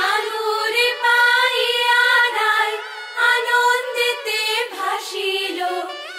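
Background song: a woman's singing voice with long held notes that waver in pitch.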